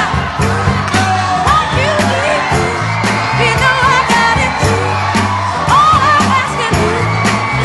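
Pop song with a sung vocal over a steady drum beat and bass.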